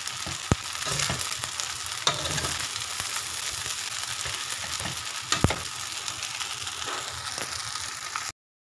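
Rice vermicelli noodles sizzling in a hot wok as they are tossed and stirred with a spatula and ladle in the last stage of stir-frying, with sharp clinks of the utensils against the pan, the loudest about half a second in and again about five and a half seconds in. The sizzle cuts off suddenly near the end.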